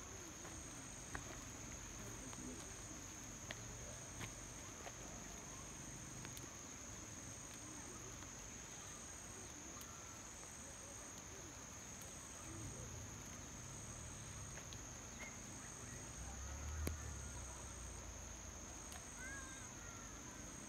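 Insects droning steadily at a high pitch, with a higher short chirp repeating about every second and a half. A soft low rumble swells briefly about three-quarters of the way through.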